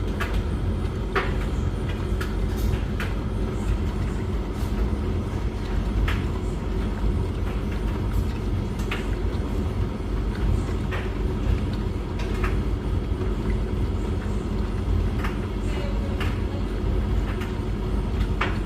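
A Beko washing machine on a Cottons 90 wash and a Hoover condenser tumble dryer running together: a steady low rumble with light clicks and knocks at irregular intervals.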